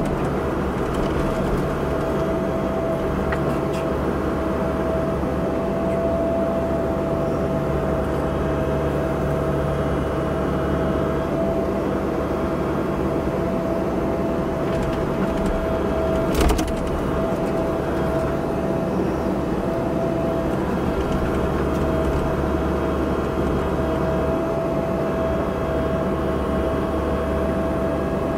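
Cat 304 mini excavator running steadily while digging, its diesel engine droning under a constant high whine. One sharp knock a little past halfway.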